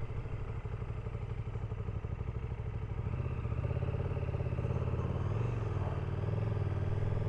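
KTM 1290 Super Duke GT's V-twin engine running at low revs as the motorcycle rolls slowly along, its pulsing exhaust note picking up a little about halfway through.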